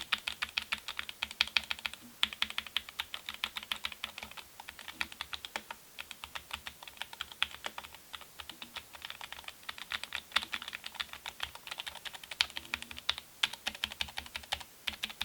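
Typing on a mechanical keyboard fitted with Cherry-profile keycaps: a fast, steady stream of key clacks with a couple of short pauses.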